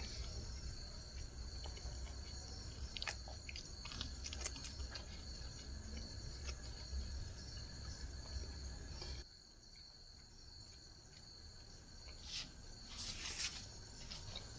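Steady high-pitched trilling of night insects, with scattered crinkles of paper wrapping and soft chewing as food is eaten by hand. A low rumble underneath cuts off suddenly about nine seconds in.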